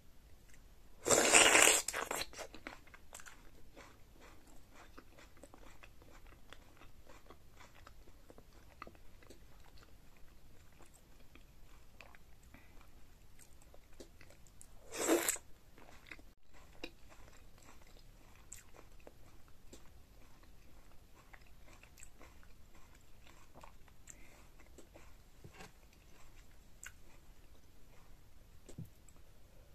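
Close-miked eating of a sauce-soaked seafood boil potato. A loud wet bite comes about a second in, then soft chewing and mouth clicks, with a second loud slurp from the spoon of sauce about halfway through.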